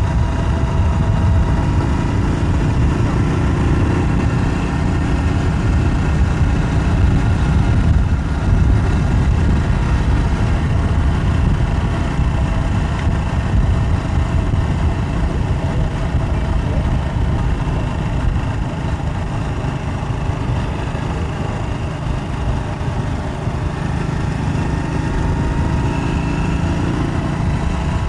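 Steady rumble of travel along a road at speed: wind and vehicle noise with a faint running-engine hum, keeping pace with a group of road cyclists.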